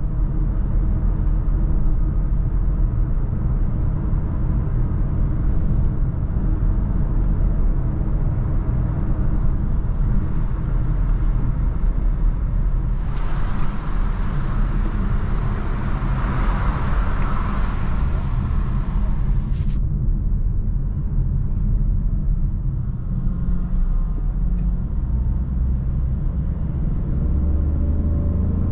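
Jeep Avenger's 1.2-litre turbo petrol engine and road noise during a drive: a steady low rumble throughout. A broad hiss joins for about seven seconds midway, and near the end the engine note rises as the car accelerates.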